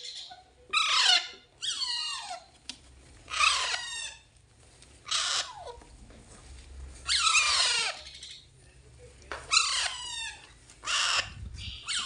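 Alexandrine parakeet chicks giving begging calls as they are hand-fed lentils, about seven calls a second or two apart, each falling in pitch.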